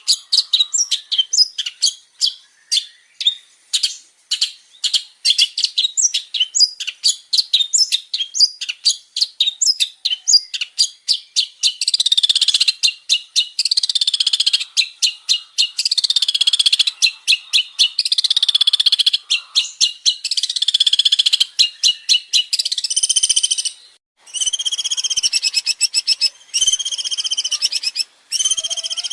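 Long-tailed shrike (cendet) singing a loud, varied song: first a fast string of short sharp chirps, then from about halfway longer rushing warbled phrases with rising and falling sweeps, and near the end a run of repeated arching whistled notes.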